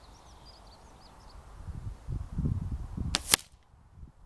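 A sharp crack about three seconds in, two hits close together: the shot from a .22 Weihrauch HW97 KT spring-piston air rifle and its pellet striking the cardboard target board. A low rumble builds just before it, and birds chirp faintly at the start.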